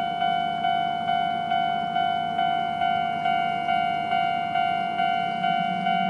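Japanese railway level-crossing warning bell ringing in the old-type standard tone at a fast tempo, a little over two strokes a second, each stroke ringing out and fading. A low rumble grows underneath near the end.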